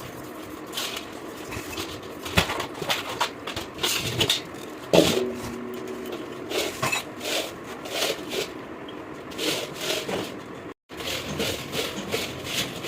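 Irregular clinks, knocks and scrapes of hard objects being handled and set down, with a brief ringing tone about five seconds in.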